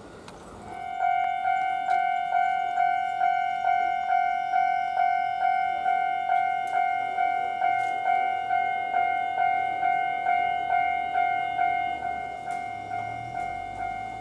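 Japanese level-crossing electronic warning bell starting about a second in and then ringing steadily, about two dings a second: the signal that a train is approaching and the barriers are coming down.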